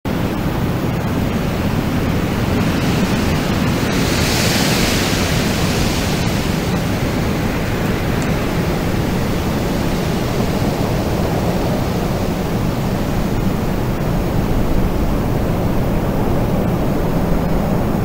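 Wind blowing steadily, a dense low rumbling noise. About four seconds in a gust swells into a brighter hiss and dies back by about six seconds.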